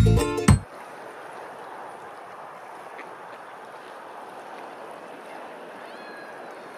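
Steady wash of wind and moving water on open water where swans and geese are swimming. The last of a cheerful music track cuts off about half a second in.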